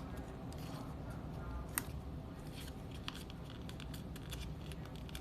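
Construction paper being folded and creased by hand: soft rustling with scattered small crackles and one sharper click about two seconds in, over a low steady hum.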